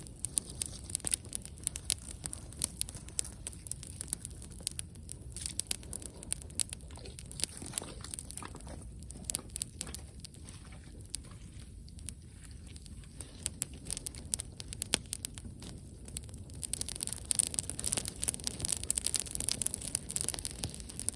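Wood campfire crackling, with irregular sharp pops and snaps over a low steady rumble. The crackling grows denser about three-quarters of the way in.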